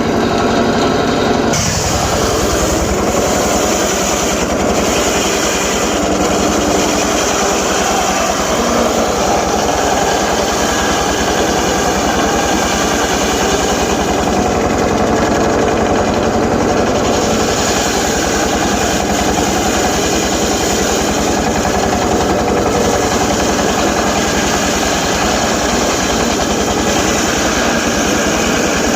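Homemade circular saw running steadily and ripping teak timber, a loud continuous machine sound that shifts slightly in tone about a second and a half in.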